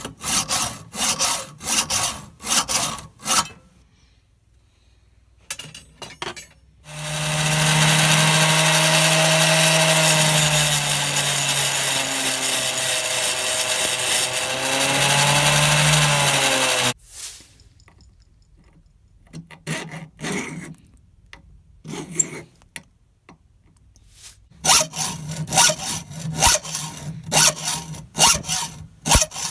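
Hacksaw cutting steel threaded rod in a vise with quick back-and-forth rasping strokes. A few seconds in, a bench grinder runs for about ten seconds with a steady whine as a small steel piece is ground against the wheel, then cuts off abruptly. After that the hacksaw resumes, slitting the end of the rod with more quick strokes.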